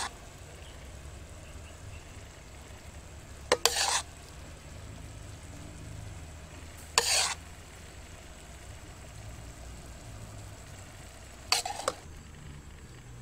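A spoon clicking against the dish and sauce being spooned over a braised pork leg, three short times a few seconds apart, over a steady low hum.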